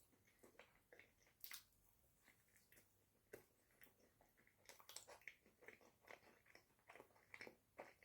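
Close-miked chewing and mouth sounds of someone eating a cream-filled pastry: soft, irregular small clicks and smacks, with a few sharper ones about one and a half seconds in and near the end.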